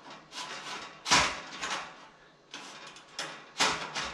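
Dell ReadyRails sliding server rail being pulled out and pushed back in by hand: a series of short metallic sliding clatters and clicks, loudest about a second in and again near the end.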